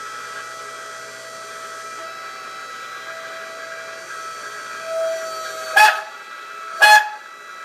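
Hydraulic press pump running with a steady whine while the angle-iron bending die presses down on a small steel strip. About six seconds in come two sharp, ringing metallic bangs about a second apart as the steel gives and the die bottoms out.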